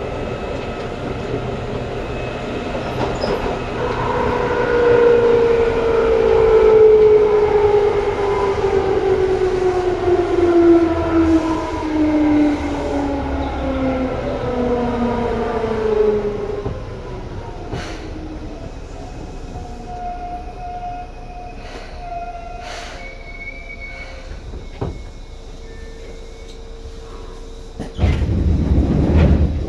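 Seibu 2000 series electric train's traction motors groaning under regenerative braking, their tone falling steadily in pitch as the train slows. The train then runs quieter with scattered clicks and faint steady tones. Near the end comes a sudden loud low rush.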